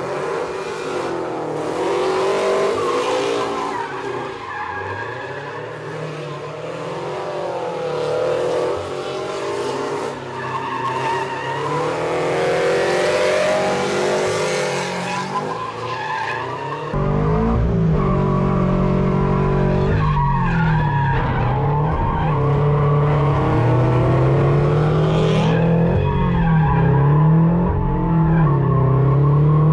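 Toyota 86 drift car engine revving up and down, its pitch rising and falling, with tyres squealing as it slides. About seventeen seconds in, the sound switches to inside the drift car's cabin, where the engine is louder and lower-pitched, still rising and falling as the car drifts.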